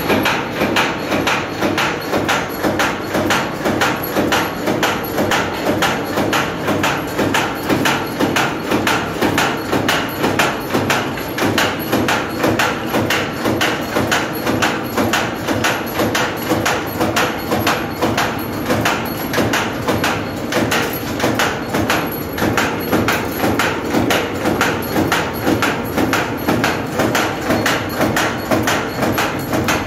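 Wire straightening and cutting machine running, steel wire drawn off the coil and through its straightening rollers, with a steady, fast, even rhythm of knocks.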